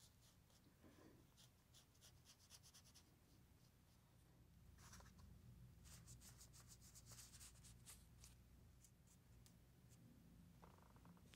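Faint, short strokes of a dry brush scratching on rice paper, coming in quick runs.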